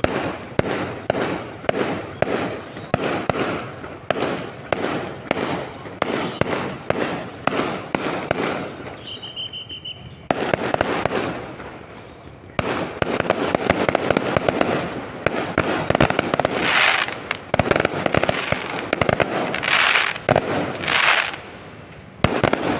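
Fireworks going off: a fast run of sharp bangs, two or three a second, for about the first ten seconds, then dense crackling with a few louder bursts toward the end.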